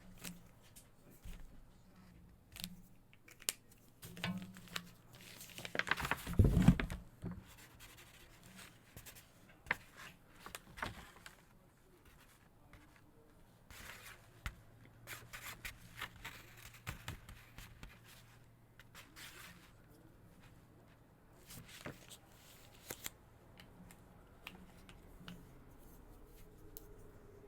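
Felt-tip markers scratching across paper in short, uneven strokes, with scattered light clicks. A louder rustle and bump comes about six seconds in.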